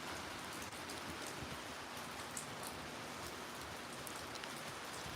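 Steady rain falling, with faint scattered ticks of drops hitting a surface.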